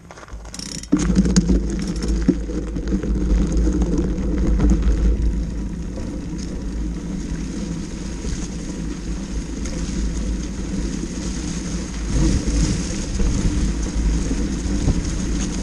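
Mountain bike being ridden over gravel and then grass, heard through a camera mounted low by the front wheel: a steady low rumble of tyre and wind noise with rattling. It starts sharply about a second in, after a few clicks.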